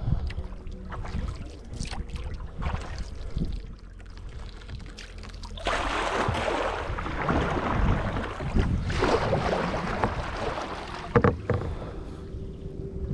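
Kayak paddling: the paddle blades splash and drip in two longer stretches about six and nine seconds in, with low wind rumble on the microphone. There is a sharp knock about eleven seconds in.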